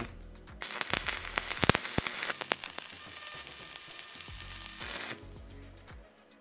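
Stick-welding arc from a MIG-200MDP multi-process welder burning a 4 mm electrode on steel plate, with the output turned down from full: a dense crackling sizzle with sharp pops in its first couple of seconds. It starts about half a second in and cuts off about a second before the end. Background music runs underneath.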